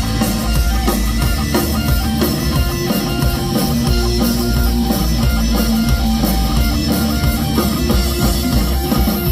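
Live rock band playing an instrumental passage without vocals: guitar over a drum kit.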